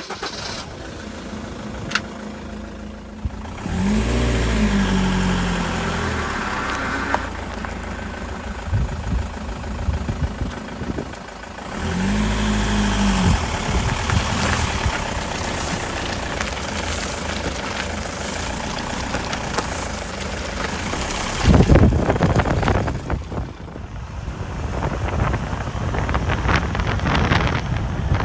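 Camper van on the move: engine and road noise, with the engine note rising and falling twice, about four and twelve seconds in, and a louder rush of noise a little past twenty seconds.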